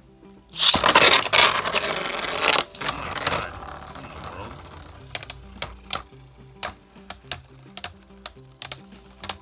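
Spinning Beyblades clashing in a stadium: a loud grinding rattle of the tops in contact for about three seconds, then sharp clicks every half second or so as they keep knocking into each other. The tops are trading spin, which is called equalizing.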